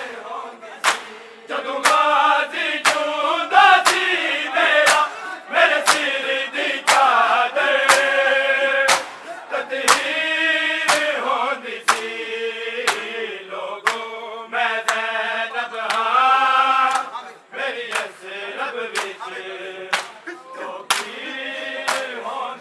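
Male mourners chanting a noha together while beating their bare chests with their hands (matam), sharp slaps landing in a steady rhythm about once a second.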